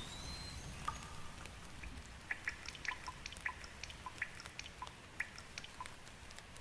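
Water drops dripping from rain, heard as irregular plinking ticks, several a second, over a soft rain hiss. A brief high whistle sounds right at the start.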